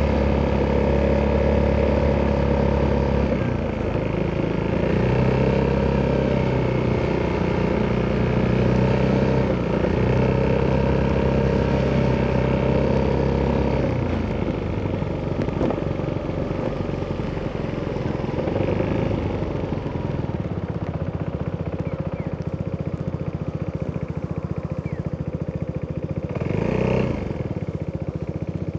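Italjet Dragster 200 scooter's single-cylinder four-stroke engine running through an Akrapovic exhaust at riding throttle, its pitch dipping and rising in the first half. About halfway through the engine note drops away to a lower, even rumble, as when easing off the throttle. A brief louder swell comes near the end.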